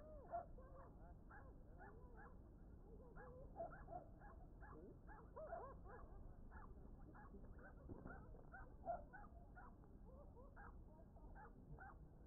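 Faint animal calls: many short calls that rise and fall in pitch, several a second, over a low steady background noise.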